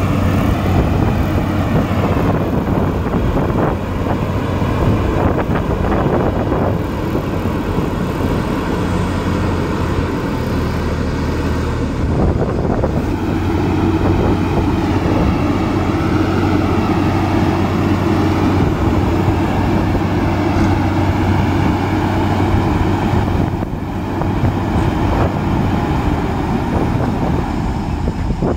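Diesel engine of heavy earthmoving machinery running loud and steady, its pitch wavering up and down as the revs change under load.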